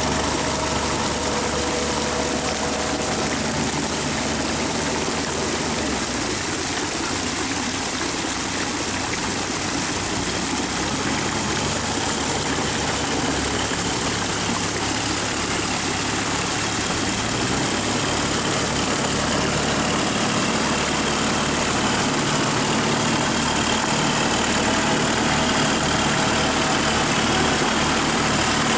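Kubota tractor's diesel engine running steadily as it drives iron cage wheels through a flooded rice paddy, puddling the mud.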